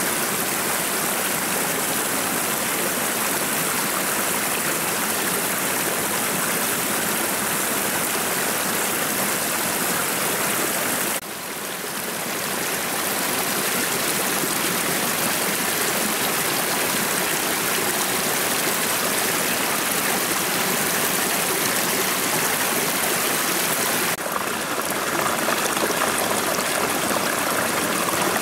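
Steady rushing of a flowing stream, with no let-up; it changes abruptly twice, about 11 and 24 seconds in, where the sound is cut.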